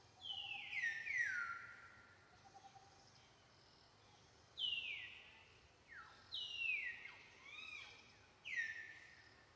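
Infant macaque giving about five high-pitched crying calls, each sliding down in pitch and then levelling off. Two come close together at the start and the others are spread through the rest.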